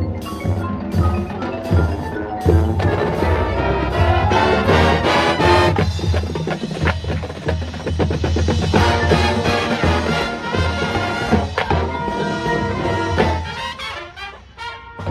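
Drum and bugle corps performing live: brass horns, marching drums and front-ensemble marimbas and mallet percussion playing together over a steady low drum pulse. The music thins out near the end.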